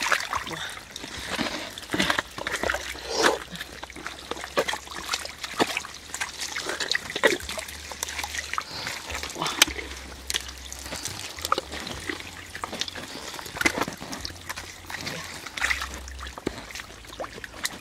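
Hands scooping and working wet mud in a plastic basket: irregular wet squelches, slaps and splatters of mud and water.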